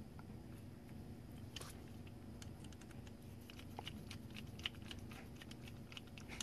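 Faint, irregular small clicks and scrapes of a precision screwdriver turning a small screw into the plastic wheel hub on a yellow gear motor, fastening the wheel to the motor shaft.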